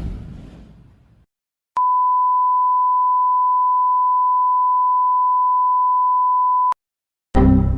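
Censor-style electronic beep: one steady pure tone around 1 kHz held for about five seconds, switching on and off abruptly. Before it, the tail of a loud, noisy sound effect fades out. Near the end, another loud, pitched sound effect cuts in.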